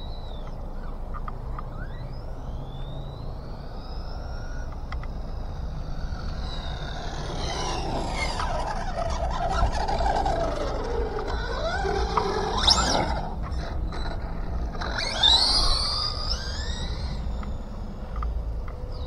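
Team Associated DR10 RC drag car's electric motor and drivetrain whining, rising and falling in pitch as the car accelerates and slows on passes, running on its newly changed spur and pinion gearing. A steady low wind rumble on the microphone runs underneath.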